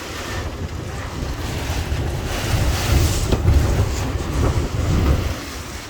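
Hurricane-force wind from Hurricane Ian gusting and rumbling hard against the microphone, swelling to its strongest about three seconds in and easing toward the end.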